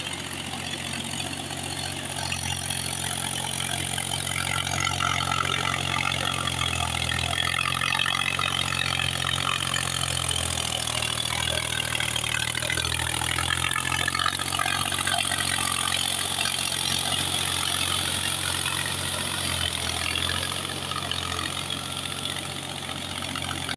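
Mahindra 275 DI tractor's diesel engine running steadily under load as it pulls a cultivator through a flooded paddy field. It grows louder over the first few seconds as the tractor comes closer, then eases a little near the end as it turns away.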